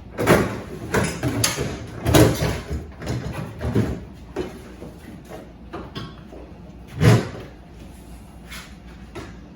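A door being opened and shut: a run of knocks and thumps over the first four seconds, then one more bang about seven seconds in.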